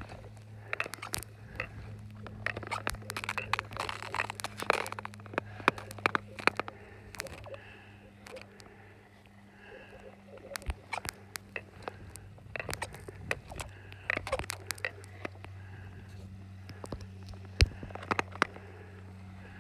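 Nordic long-distance ice skates gliding over thin, clear black lake ice: a steady low hum with scraping strokes and many sharp ticks and cracks, fewer of them about halfway through.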